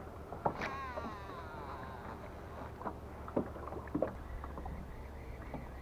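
Water lapping and slapping against a small fishing boat's hull, with a steady low rumble, scattered light knocks and clicks, and a short falling whistle near the start.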